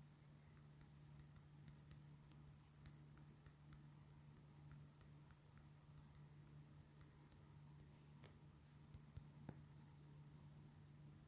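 Near silence with a faint steady low hum and scattered faint clicks, a few slightly louder ones near the end.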